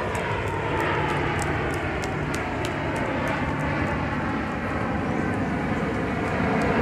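Steady jet noise from a Blue Angels F/A-18 Hornet flying overhead, its pitch sliding slowly downward as it moves away.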